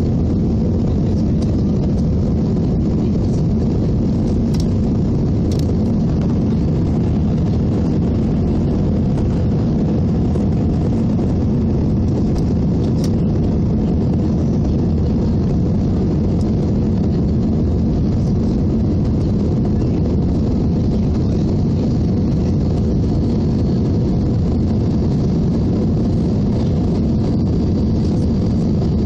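Steady low rumble of an Airbus A319's jet engines and rushing air, heard inside the passenger cabin during the climb after takeoff. A faint high whine comes in over the last several seconds.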